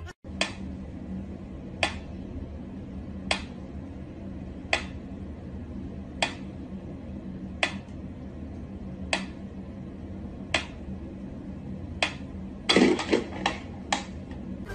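Sharp clicks repeating at an even pace, about one every second and a half, then a quicker run of louder clicks near the end, over a steady low hum.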